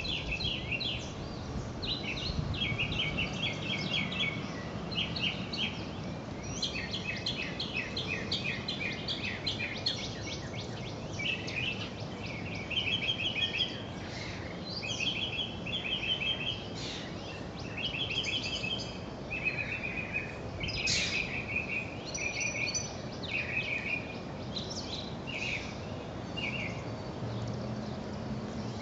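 Small songbirds singing and chirping, short phrases of rapidly repeated high notes overlapping one another throughout, over a faint steady outdoor background noise.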